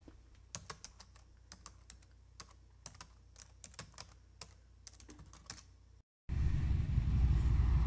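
Computer keyboard typing: irregular sharp key clicks, a few a second, over a faint low hum. About six seconds in it cuts to a brief silence, then a much louder low rumbling outdoor noise takes over.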